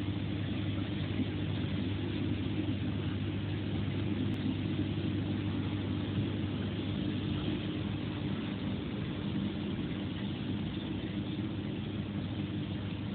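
Aquarium pump or filter running, a steady hum with a hiss of moving water or air over it.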